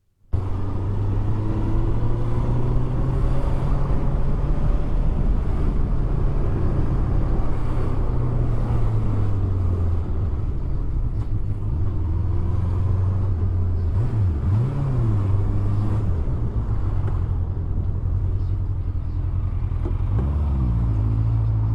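Honda CBF motorcycle's inline-four engine running under way, heard from the rider's position with wind noise over it; the engine note drops and climbs back twice, around the middle and near the end.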